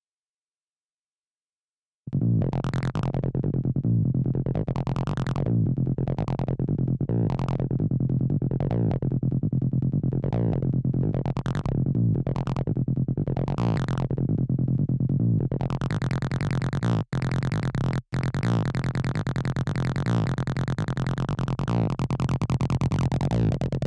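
Acid-style electronic music: a synthesizer with a steady low pulse, its filter sweeping open and shut about once a second. It starts after about two seconds of silence. About two-thirds of the way through, the sound stays bright and open, broken by two very short dropouts.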